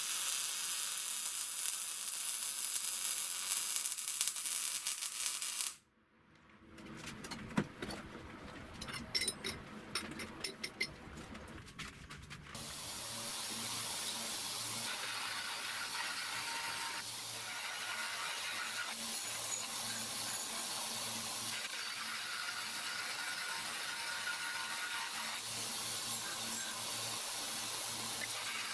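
Wire-feed (MIG) welding arc crackling steadily on steel for about six seconds, then cutting off sharply. A few scattered light clicks and knocks follow, and from about thirteen seconds a belt grinder runs steadily with a low motor hum, its belt grinding the welded steel part.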